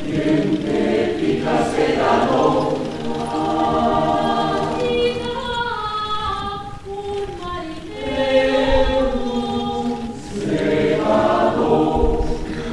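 A choir singing, with held chords that shift every second or two.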